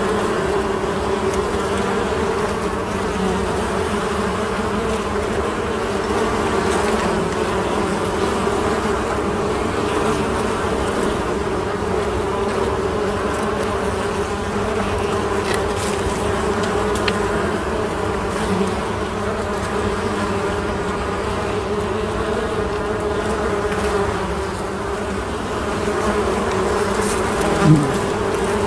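Honeybee colony humming: a steady, dense buzz of many bees' wings, with a brief louder buzz that bends in pitch near the end.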